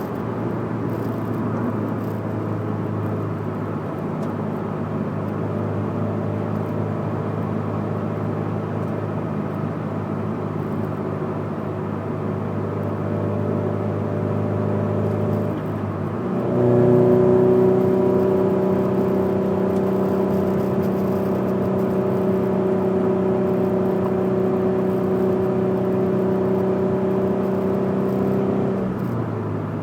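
Scion FR-S's 2.0-litre flat-four engine with Borla unequal-length headers, HKS front pipe and Greddy exhaust, running at steady revs with a boxer rumble. About halfway through the note dips briefly, then comes back louder and higher. It holds there until it drops again near the end.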